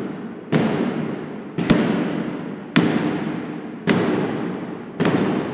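Mallet blows on a Minuteman III missile's V-band clamp during V-band installation. There are five sharp strikes about a second apart, each ringing out metallically until the next.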